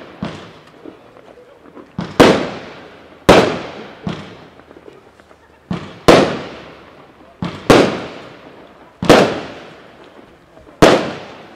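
A consumer firework battery firing its shots one after another: sharp, loud bangs every one to two seconds, each trailing off, with softer pops between them.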